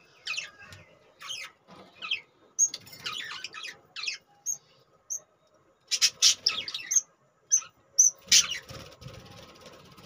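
Budgerigars chirping in short, high, scattered bursts, with a busier flurry of chirps about six seconds in and another sharp burst a little after eight seconds.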